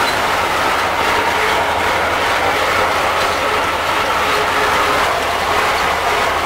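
T-25 tractor's two-cylinder air-cooled diesel running steadily under load, heard from inside the cab, together with the rattle of the PTO-driven Wirax 1.65 m rotary mower cutting hay.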